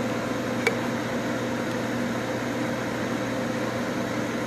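Countertop air fryer running with a steady fan whir and a low hum. There is a single light click about two-thirds of a second in.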